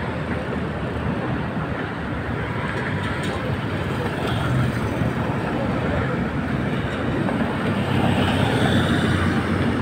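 Road traffic on a busy city street: cars and vans driving past, a steady mix of engine and tyre noise that grows a little louder in the second half.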